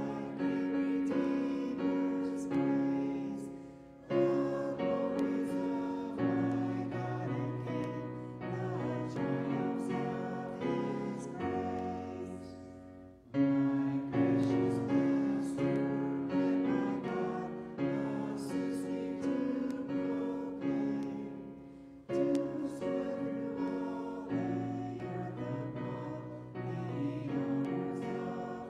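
Piano accompanying a congregation singing a hymn, the voices soft beneath the piano, with short pauses between phrases.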